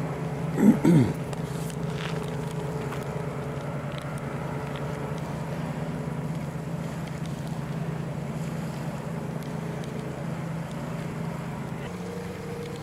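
Steady engine drone with wind noise. About a second in, two loud, short sounds sweep sharply down in pitch. Near the end the engine note shifts.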